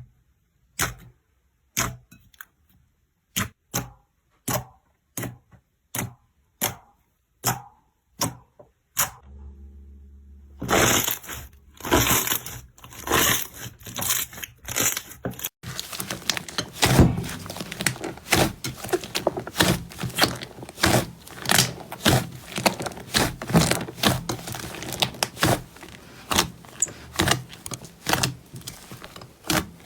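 Slime being pressed and squeezed by hand, crackling and popping. First comes a run of separate sharp crackles about every half second. After a short pause the crackles come close together and keep going.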